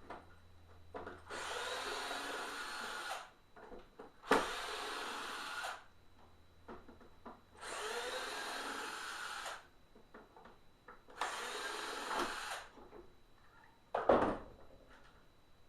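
Power drill/driver running in four short bursts of a second or two each, its pitch rising and falling within each run. One sharp knock near the end.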